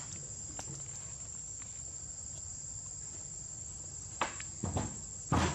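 Crickets giving a steady, high-pitched trill, with a few short knocks near the end.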